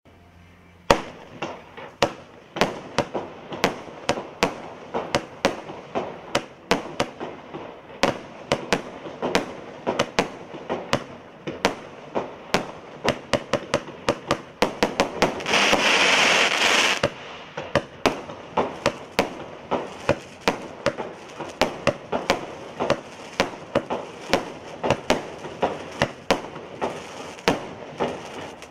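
Evolution Fireworks Odyssey, a 73-shot 20 mm-tube barrage cake, firing a steady run of sharp shots, about two to three a second, starting about a second in. Around halfway through, a loud hissing rush lasts about a second and a half.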